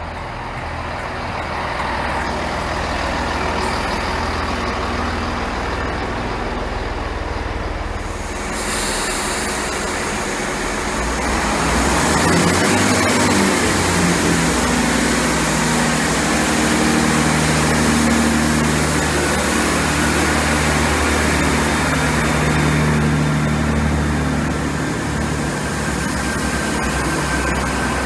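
Diesel train engine running steadily, growing louder about twelve seconds in.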